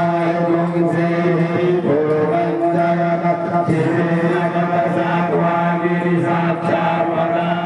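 Voices chanting a Hindu devotional mantra in long, held notes, the pitch shifting every couple of seconds.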